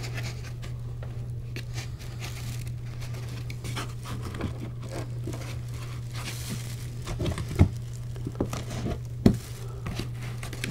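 Foam packing being worked loose inside a cardboard box around a boxed 3D printer, with plastic wrap crinkling and foam scraping. Two sharp knocks come about seven and a half and nine seconds in.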